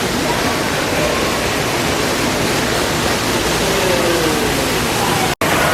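Steady rushing of falling water, loud and even, with faint voices far behind it. The sound cuts out for an instant near the end.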